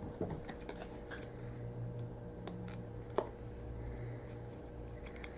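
Faint rustling and light clicks of baseball trading cards being handled, with one sharper tick about three seconds in, over a low steady hum.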